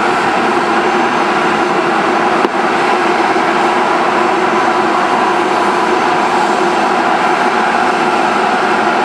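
Airbus A350-900's Rolls-Royce Trent XWB jet engines at takeoff power: steady, loud jet noise with several held tones as the airliner lifts off and climbs out.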